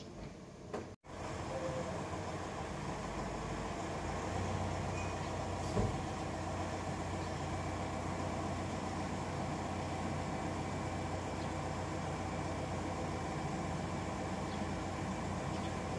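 Audio cuts out briefly about a second in, then a steady low mechanical hum, like a vehicle engine running, with one short knock about six seconds in.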